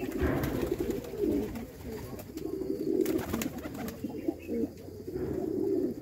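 A flock of fancy pigeons cooing, low wavering coos from several birds overlapping almost without a break, with a few short clicks among them.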